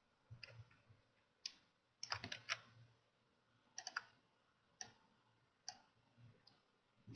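Faint, scattered clicks of a computer mouse and keyboard: single button clicks and a key press, with a quick run of several clicks about two seconds in.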